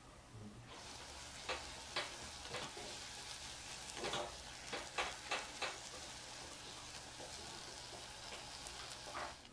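Choux pastry dough sizzling as it is cooked in a saucepan, being stirred and pressed with a silicone spatula. A steady sizzle sets in about a second in, and the spatula scrapes and taps against the pan about eight times.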